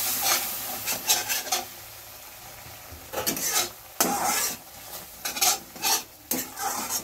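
Metal spatula scraping and stirring a thick spice paste in a metal kadai, the masala sizzling as it fries with a splash of hot water. The sizzle fades over the first couple of seconds, and after that the spatula comes in quick runs of scraping strokes against the pan.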